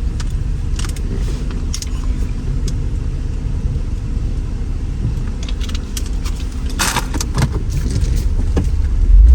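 Inside the cabin of a Mercedes R129 SL500 cruising at highway speed: a steady low drone of engine and road noise, with a few light rattles or clicks, one longer clatter about seven seconds in. The drone grows louder near the end.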